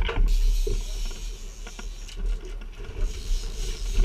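Steady low rumble and hiss of a small fishing boat at sea, with a few short knocks and clicks.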